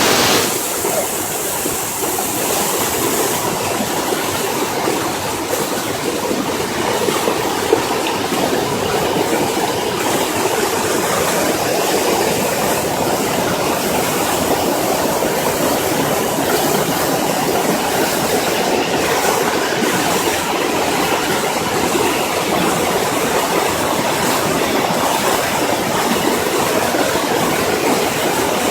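Floodwater rushing loudly and steadily, an unbroken torrent with no pauses.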